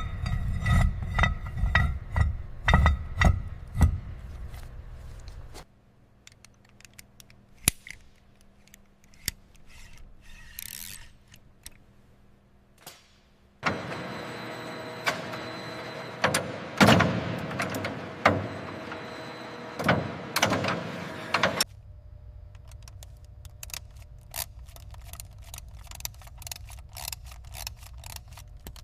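Workshop tool and metal-part handling sounds, in several separate segments: clicks, clinks and rattles. Heavy knocks come in the first few seconds, then a quiet stretch of sparse clicks, then a louder run of clatter, and rapid small clicks near the end.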